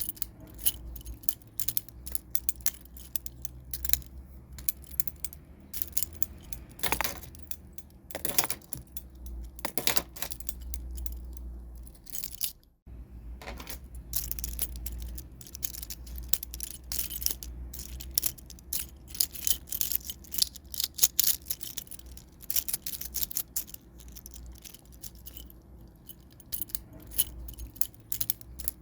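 A bunch of metal keys jingling, shaken in irregular bursts of sharp clinks, with a short break about halfway through.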